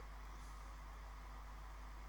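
Quiet room tone: a steady low hum with faint hiss, and no distinct strokes or knocks.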